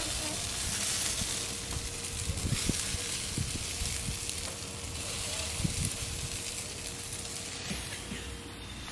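Chicken sizzling over open flames on a grill, a steady hiss, with a few light clicks and knocks of metal tongs on the meat and grate as the pieces are turned.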